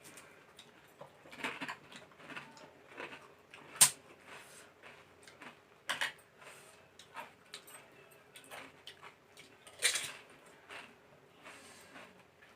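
People eating pani puri: crisp puri shells crunching and crackling as they are bitten and chewed, in short irregular bursts, with sharper cracks about 4, 6 and 10 seconds in.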